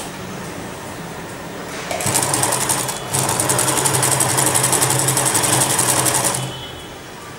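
Domestic electric sewing machine stitching through layers of fabric: it starts about two seconds in, stops for a moment a second later, then runs again in a fast, even chatter of needle strokes and stops near the end.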